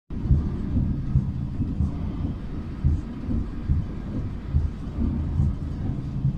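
Railway train wheels clattering over the rails: a steady low rumble with irregular louder knocks about every half second.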